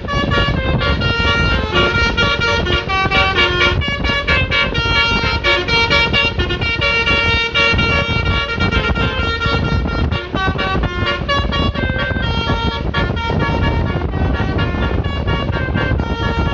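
A multi-tone telolet ('basuri') vehicle horn worked from a pianika-style keyboard, playing a melody of short changing notes over engine and road rumble.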